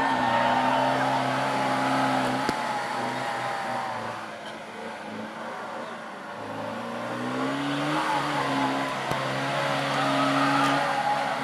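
Off-road 4x4 engine revving under load, easing off in the middle and revving up again about eight seconds in.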